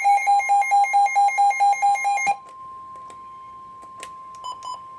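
Weather alert receiver sounding for a severe thunderstorm warning: a harsh beep pulsing about four times a second over a steady high alert tone. The beeping stops about two seconds in and the steady tone carries on alone, with a few short blips near the end.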